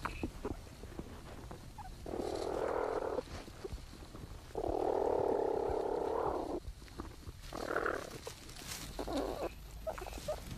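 Platypus young suckling from their mother in the nesting burrow, picked up close by a microphone in the chamber: four hoarse, rasping sounds a second or two long, the longest and loudest near the middle.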